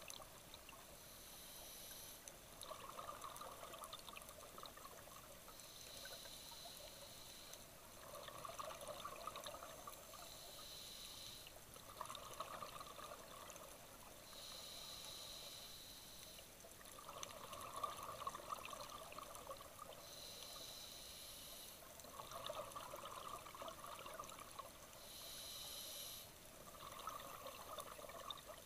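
Scuba diver breathing through a regulator underwater: a hiss on each inhalation through the demand valve alternating with a gurgle of exhaust bubbles on each exhalation, about one full breath every five seconds.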